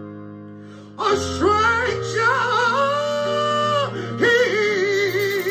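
A man singing a gospel song in a high voice with a wide vibrato over sustained accompaniment chords. The chords ring alone for the first second, then his voice comes in with long held notes, breaking briefly just before four seconds in and picking up again.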